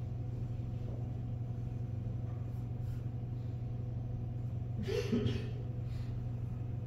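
Steady low hum of room tone, with one brief soft sound about five seconds in.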